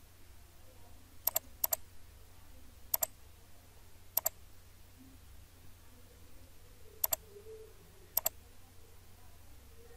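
Computer mouse button clicking six times at uneven intervals, each a quick press-and-release click. A faint steady low hum sits underneath.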